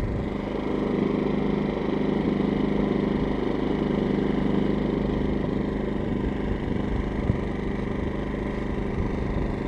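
An engine running steadily at an even pitch, with a low hum.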